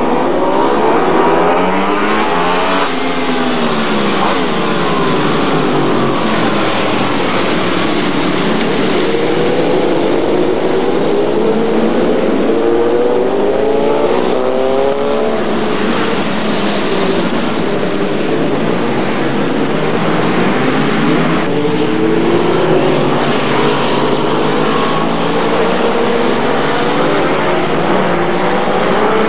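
A pack of superbike racing motorcycles accelerating and passing, many engines revving up and down together through gear changes.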